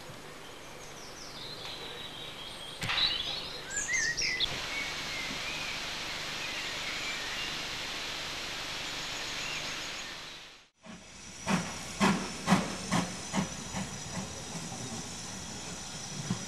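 Birds chirping over a steady outdoor hiss. Then a steam locomotive gives a run of sharp beats, about three a second, over hissing steam.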